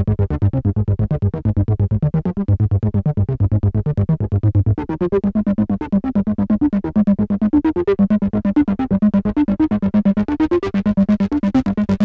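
Behringer Poly D analog synthesizer playing a fast, distorted sequence from its built-in sequencer, short notes repeating at an even pulse. About five seconds in the low bass notes give way to higher ones, with rising filter sweeps running through the pattern and the sound growing brighter toward the end as the knobs are turned.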